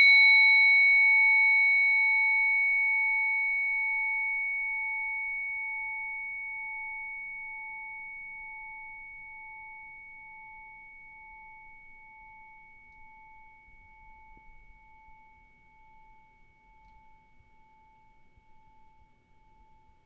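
Sahari-bronze orin, a Japanese Buddhist standing bell, ringing on after a single strike: one clear tone with a bright higher overtone, fading slowly over about twenty seconds, the highest overtones dying away first.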